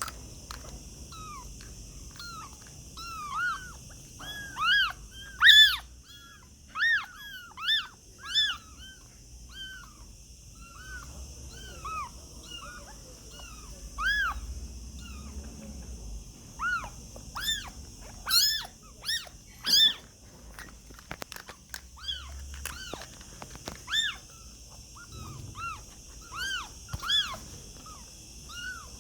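Kittens mewing: many short, high-pitched mews, one after another, some overlapping, with the loudest cries near the start and about two-thirds of the way through.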